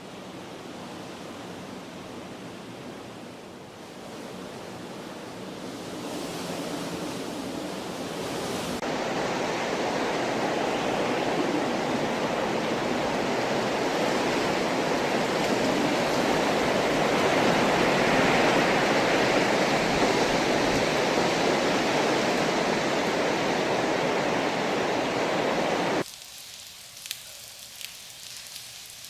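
Heavy rain as a dense, steady hiss that changes character about nine seconds in, growing louder. It cuts off abruptly near the end, giving way to lighter rain with scattered separate drop ticks.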